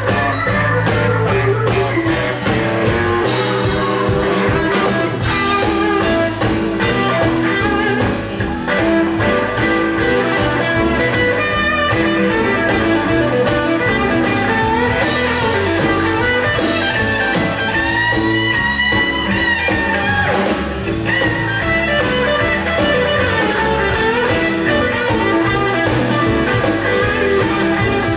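Live rockabilly band playing with electric guitars, keyboard and drum kit, the drums keeping a steady beat.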